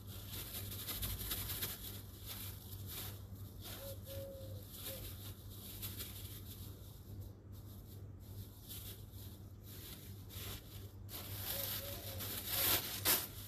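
Thin plastic bag rustling and crinkling in irregular bursts as kitchen scraps are shaken out of it, loudest near the end, over a steady low hum.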